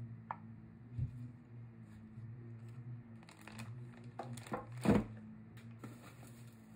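Handling noise as a cordless band saw is moved about and set down on a plastic bag: plastic crinkling and rustling, with a light knock about a second in and a louder knock about five seconds in. A low steady hum runs underneath.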